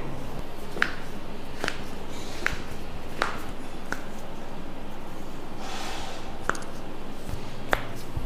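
A series of sharp clicks, about one every 0.8 s through the first half and then two more spaced further apart. A short breathy rush of noise comes just before the later clicks.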